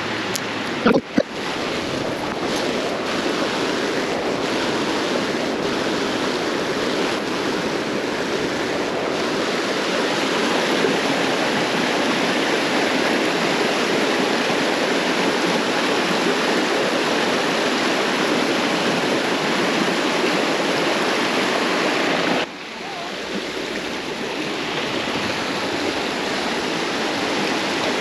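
Creek water rushing steadily over rocks. A couple of sharp knocks sound about a second in, and the rush drops suddenly about 22 seconds in, then builds back.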